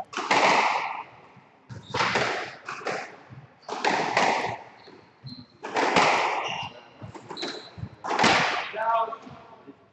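Squash rally: the ball cracks off rackets and the court walls about every one to two seconds, each hit echoing around the enclosed court, with a few short squeaks between hits.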